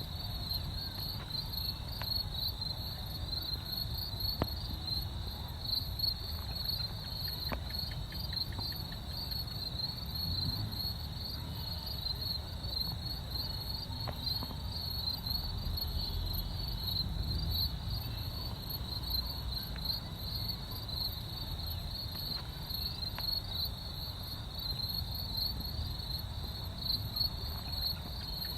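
Crickets chirping: a continuous chorus of rapid, high-pitched pulses, with a fainter, even higher insect trill above it and a low rumble underneath.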